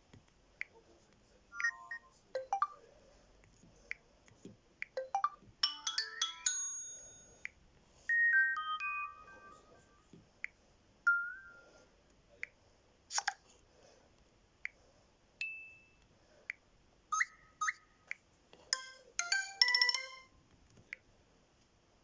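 LG Joy H220 phone notification tones played one after another: a dozen or so short chimes, beeps and little arpeggios with quiet gaps between them, including a rising sweep about six seconds in and a falling run of tones about eight seconds in.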